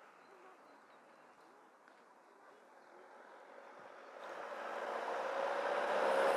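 White panel van driving up the road toward the listener, its engine and tyre noise faint at first and growing steadily louder over the last three seconds as it approaches.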